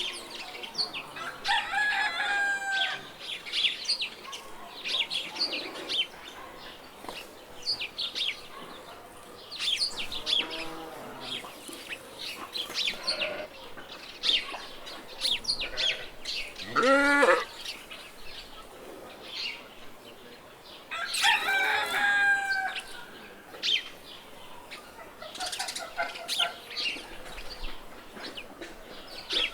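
Farmyard ambience: small birds chirping continually, with chickens clucking and a rooster crowing near the start and again about two-thirds of the way through.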